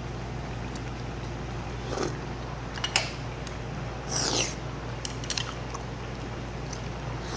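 A person eating soup: slurps of hot pork-bone soup broth, the loudest about four seconds in, and chewing, with a few light clicks of utensils, over a steady low hum.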